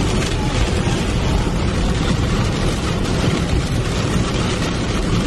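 Steady noise inside a car cabin driving through heavy rain: tyres hissing on the wet road and rain on the windshield over a low road and engine rumble.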